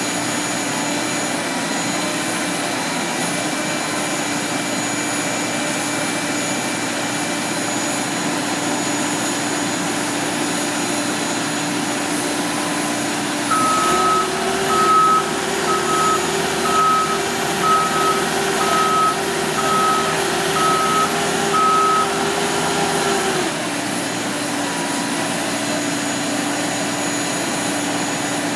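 Airport main-deck cargo loader running its lift. About halfway in, its motor comes up to a louder, higher drone and a high warning beeper sounds about once a second for some ten seconds, then both cut off. A steady drone carries on underneath throughout.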